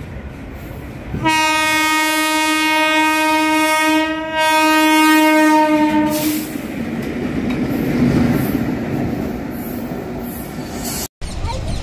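Horn of a WAP-4 electric locomotive sounding two long blasts, the second following a brief break about four seconds in, as a pair of coupled WAP-4 light engines pass close by. After the horn, the wheels rumble and clatter over the track.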